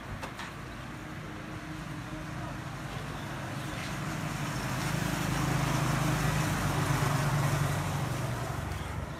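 A motor vehicle passing on the road. Its engine hum and tyre noise swell to a peak about two-thirds of the way through and then fade.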